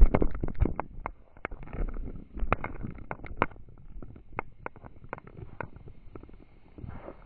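Metal chain links of a spinning poi clinking irregularly against the small action camera fixed to the chain, over a low rumble of air buffeting the camera's microphone as it swings, strongest near the start.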